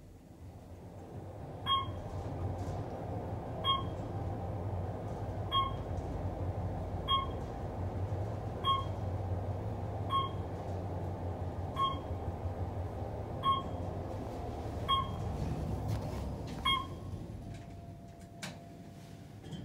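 Otis traction elevator car travelling: a steady low rumble with a short electronic beep about every one and a half seconds, ten in all, one for each floor the car passes. The rumble eases off near the end as the car slows.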